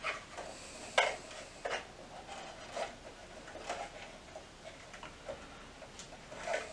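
Scattered small clicks and scrapes of electrical wires being handled and twisted together with a wire nut in a wall switch box, the sharpest click about a second in.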